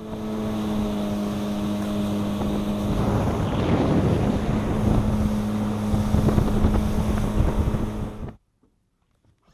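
Yamaha FSH 190 Sport jet boat running under way: a steady engine hum under a rush of wind and water that grows louder a few seconds in, then cuts off suddenly near the end.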